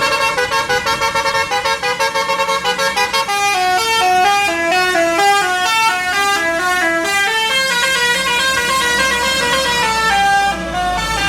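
Bus telolet horn (a Basuri multi-tone horn) playing a melody: a quick run of pulsing notes for about the first three seconds, then a slower tune of stepped notes. A low rumble comes in near the end.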